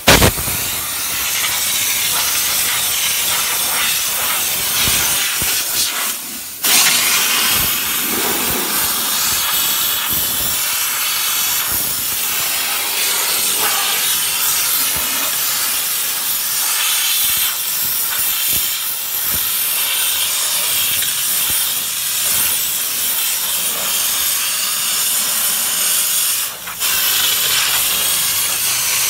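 Trigger steam gun of an LPG-fired 12-bar steam car washer blowing steam onto car bodywork: a loud, steady hiss, set to a middle wet-dry mix. It drops out briefly twice, about six seconds in and near the end.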